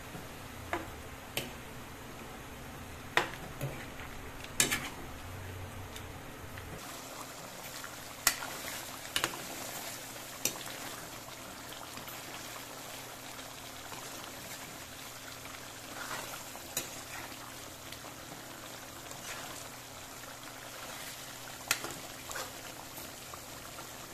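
Food cooking in a pan with a steady hiss, and a utensil clinking sharply against the pan now and then.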